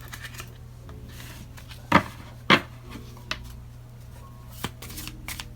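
Tarot cards handled and set down on a table: two sharp taps close together about two seconds in, then a few fainter clicks and light rubbing, over a low steady hum.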